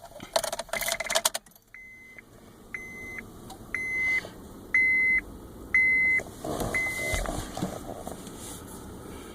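A car's warning chime beeping six times, about once a second, after a brief rapid clatter of clicks; no engine is running. Near the end there is a short rustle and a low thump.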